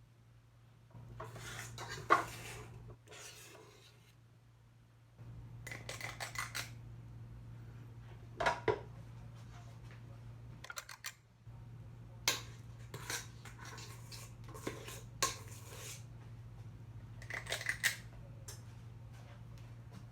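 Small metal cake pans clinking and knocking as they are handled, in scattered bursts of clatter and scraping. A steady low hum stops and restarts a few times underneath.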